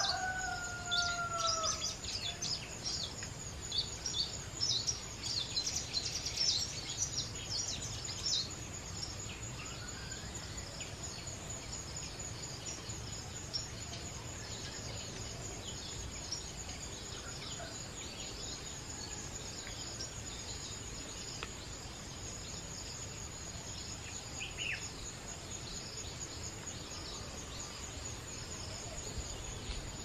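A rooster crows once at the very start, a drawn-out, slightly falling call, over a busy chatter of high chirps from small birds for the first eight seconds or so, thinning to scattered chirps after. A steady high insect whine and a low outdoor rumble run underneath.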